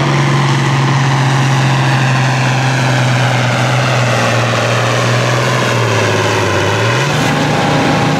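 International Harvester farm tractor's turbocharged diesel engine running hard under load while pulling the sled. The engine note sags about six seconds in and picks back up about a second later, and a thin whistle joins near the end.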